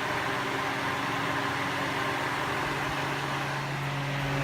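Holmes Blizzard desk fan running, loud and steady: a constant motor hum under the even rush of air from the blades.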